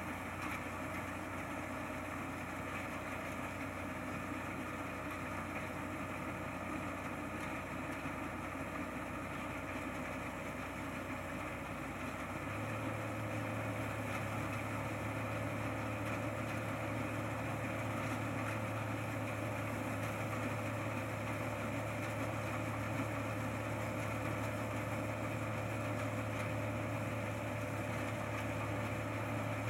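Combine harvester engine running steadily, then stepping up to a higher, slightly louder steady speed about twelve seconds in.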